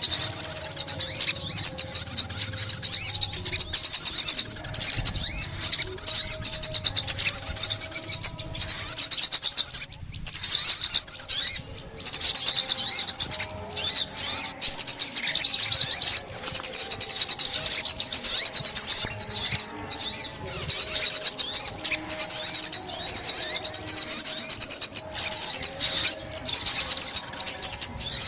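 Sunbird singing: a long run of fast, high, thin twittering trills, repeated almost without pause, with a brief break about ten seconds in.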